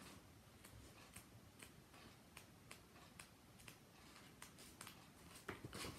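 Near silence with faint, irregular flicks and clicks of paperback pages being leafed through.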